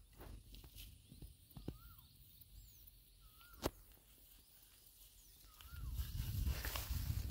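A bird repeats a short whistled note that rises and then falls, about every two seconds, over small handling clicks. From about six seconds in, low rustling and thumps build as someone moves through grass.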